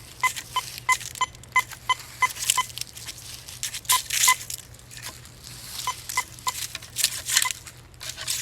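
Teknetics Patriot metal detector giving a run of short beeps at one pitch, about three a second, then a few more scattered beeps, with the rustling swish of the search coil and a steady low hum underneath.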